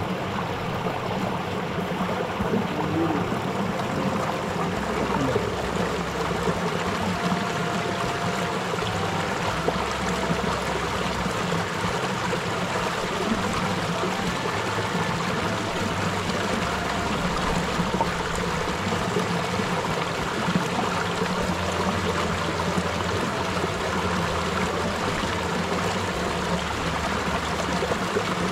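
Shallow stream running over rocks and pebbles, a steady, even sound of flowing water.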